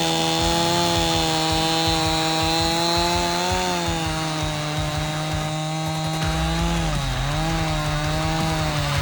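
Chainsaw running steadily at high revs, its pitch dipping briefly about seven seconds in, as when the chain bites into the wood.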